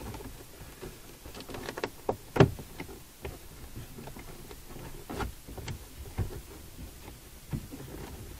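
Plastic interior trim panel being worked loose by hand from around the rear window, giving irregular clicks and knocks of the panel and its clips with light rustling. The loudest knock comes about two and a half seconds in.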